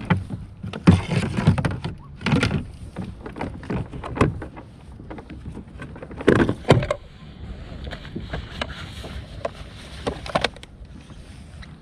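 Irregular knocks, bumps and rattles of gear and a caught bass being handled on a plastic fishing kayak, in uneven clusters, the loudest about a second in and again about six seconds in.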